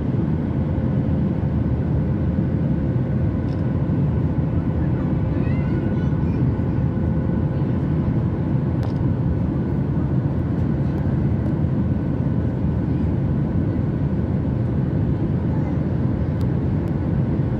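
Airliner cabin noise in flight: a constant low roar of the engines and airflow over the fuselage, with a faint steady hum.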